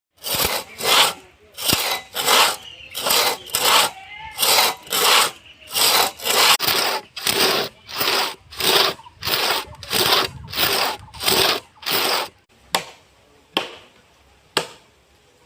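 Saw cutting through plum tree wood with steady back-and-forth strokes, a little under two a second. The sawing stops about twelve seconds in, and a few sharp knocks follow, about one a second.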